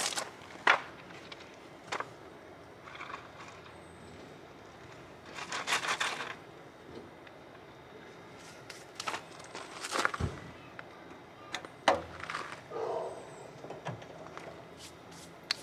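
Footsteps crunching on gravel with scattered knocks and clicks of handling work at a trailer hitch, including a stack of wooden blocks being set down on the gravel under the trailer's tongue jack.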